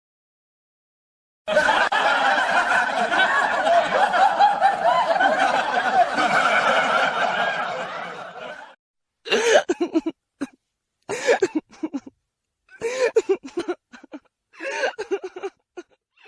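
Laugh-track sound effect: a crowd of people laughing together for about seven seconds, fading out at the end. Then a crying sound effect, one voice sobbing in short broken bursts.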